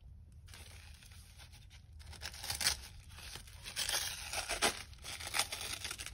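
Paper wrapping being torn open and crinkled by hand. Irregular rustling and ripping starts faintly, then grows busier about two seconds in, with a few sharper rips.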